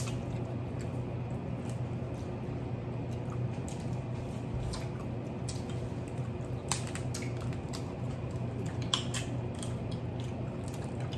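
Cooked shellfish being cracked and peeled by hand, with scattered sharp snaps of shell, wet squishing and chewing. Louder snaps come a little past halfway and again later, over a steady low hum.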